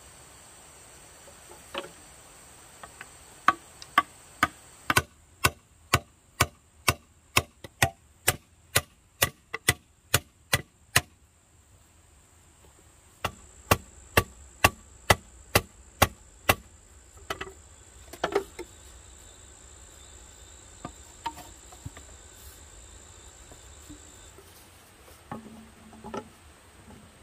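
Sharp knocks of bamboo being struck, evenly spaced at about two a second in two long runs, then a few scattered knocks. A steady high insect drone runs underneath and stops near the end.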